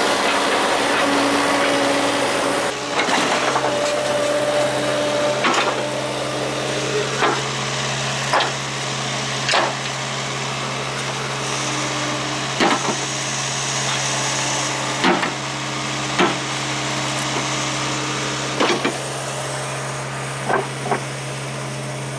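Skid steer engine running steadily, with about a dozen sharp knocks and clanks at irregular intervals as rocks are handled with the root grapple.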